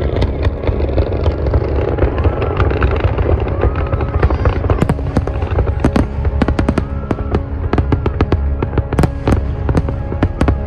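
Aerial fireworks going off in many sharp bangs and cracks, coming thickest in the second half, over steady background music and a low rumble.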